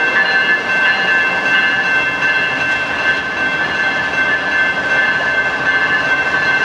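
BNSF diesel freight locomotive and its train rolling slowly by, a steady rumble and rail noise with a thin, high, steady tone held over it.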